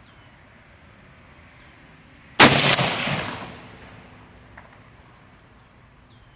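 A single shot from an M1 Garand .30-06 rifle about two and a half seconds in: a sharp crack followed by about a second and a half of echo fading away.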